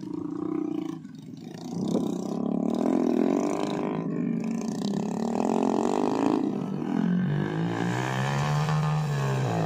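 Homemade trail motorbike engines revving up and down as the bikes ride across the field stubble, then running at a steadier, lower pitch near the end.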